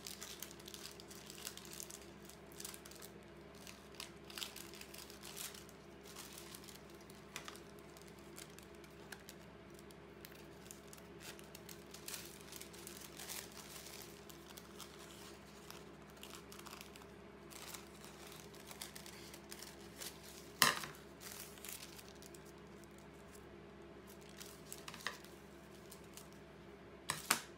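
Thin patterned collage paper rustling and crinkling as it is handled and cut with scissors, with irregular small snips and rustles throughout. A sharp click comes about two-thirds of the way in, and two more near the end.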